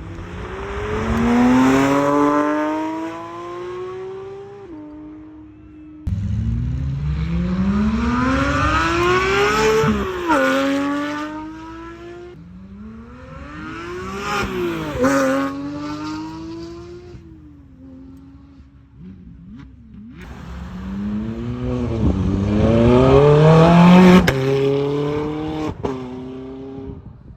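Supercar engines accelerating hard in several short clips one after another, each climbing steeply in pitch as it revs up. Twice a car goes past, its pitch peaking and then dropping as it passes.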